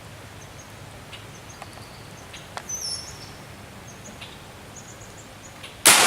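Faint bird chirps, then near the end a single loud shot from an M1A rifle in 7.62x51mm (.308), with its echo trailing away.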